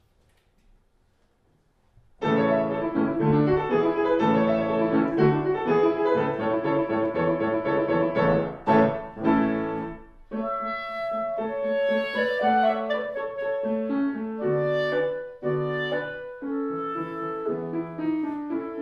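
Clarinet and grand piano duo playing classical music. The piano starts alone about two seconds in, and the clarinet enters with long held notes about ten seconds in.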